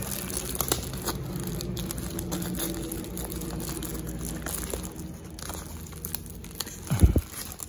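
Crinkling and rustling of a parcel's paper and plastic packaging being handled, with scattered small crackles and one low thump about seven seconds in.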